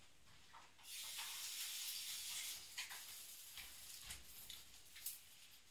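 Faint tap water running at a sink out of view for about two seconds, with a few light clicks and knocks after it.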